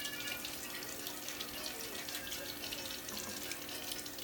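Kitchen faucet running steadily, its stream splashing over an onion held under it to loosen the stuck papery skin.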